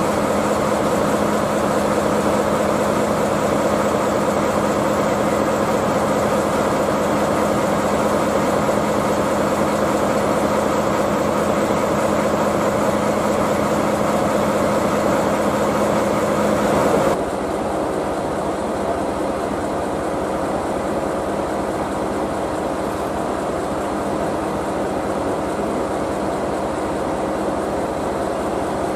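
DE10 diesel locomotive's V12 engine idling steadily, a constant low mechanical drone with steady pitched tones. More than halfway through the sound suddenly drops in level and turns duller, then runs on steadily.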